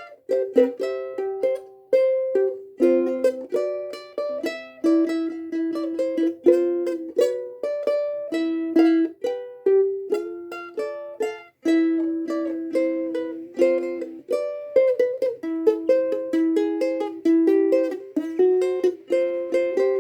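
Solo ukulele fingerpicking a melody over chords: a steady run of plucked notes, each decaying quickly.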